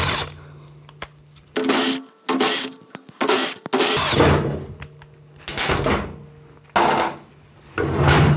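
Cordless impact wrench running in a series of short bursts, each from a fraction of a second to about a second, as it backs out the bolts that hold the cover of a PowerGlide front pump to the pump body.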